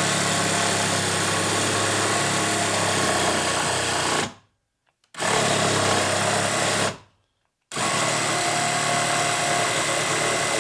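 DeWalt 12V Xtreme cordless hacksaw (a small reciprocating saw) running steadily as it saws through a wooden 2x4. Twice it winds down and cuts out for under a second, about four and seven seconds in, then starts again, stopping mid-cut even though only light pressure is on it.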